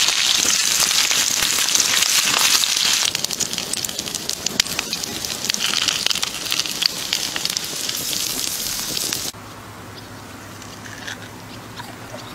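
Meat sizzling and crackling as it sears on a hot stone slab over a fire: a dense hiss dotted with many quick pops. The sizzle cuts off abruptly about nine seconds in, leaving a much quieter stretch.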